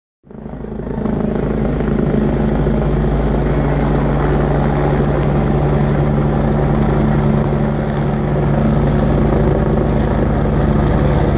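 Air force helicopter flying overhead: the steady drone of its turbine engines and rotor, with a fast rotor beat underneath.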